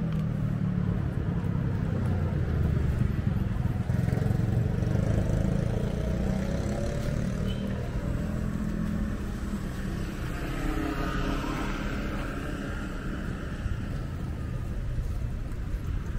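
Street traffic: cars and motor scooters driving past, a steady engine rumble with engine notes that rise and fall as they pass.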